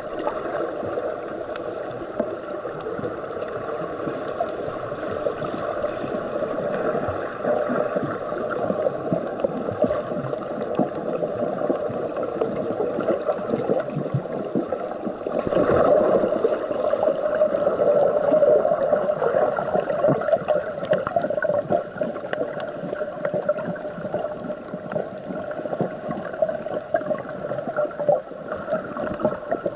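Water heard from under the surface: a steady, muffled rush of water moving around a submerged microphone while snorkeling, growing louder for a few seconds about halfway through.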